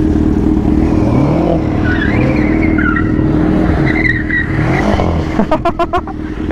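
BMW M6 Gran Coupé's twin-turbo V8 revving up and down again and again as the car spins donuts, its rear tyres squealing on the concrete. Near the end, a quick run of sharp cracks.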